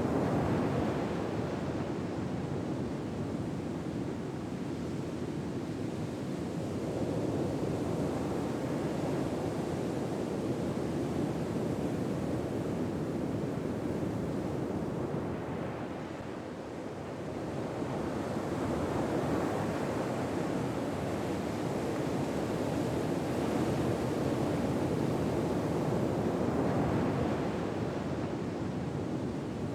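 Gentle ocean waves washing on a shore, a steady surf noise that swells and eases slowly, with a brief lull about halfway through.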